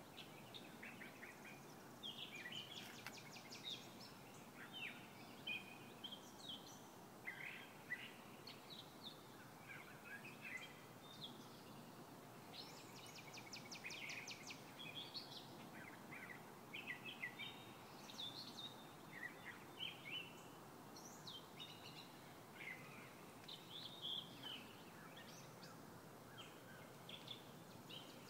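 Faint songbirds chirping and singing, with short calls all through and a couple of fast trills, over a steady low background noise.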